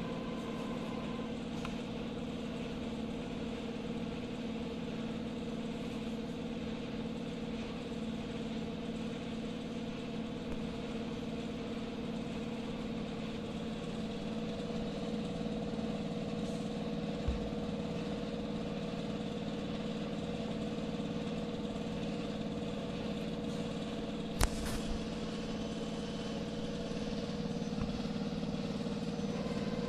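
Steady machine hum of a sewing-machine workshop, one constant pitched drone throughout. A sharp click about 24 seconds in.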